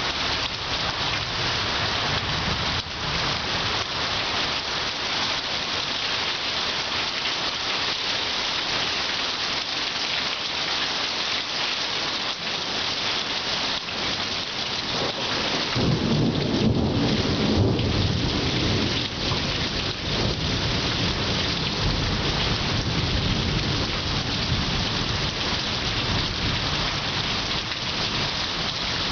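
Heavy rain pouring steadily in a thunderstorm, with a low rumble of thunder rising a little past halfway and lasting about three seconds.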